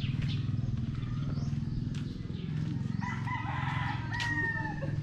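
A rooster crowing once, a long call of about two seconds starting about three seconds in, over a steady low rumble.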